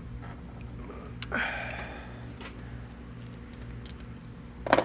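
Handling noises from hands working around the engine bay: a short rubbing scrape about a second in and a sharp knock near the end, over a steady low hum.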